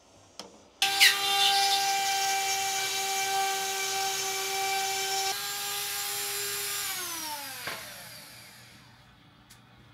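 Electric power-tool motor switched on with a sudden start, running at a steady high whine, then released so that its pitch falls and it winds down to a stop near the end.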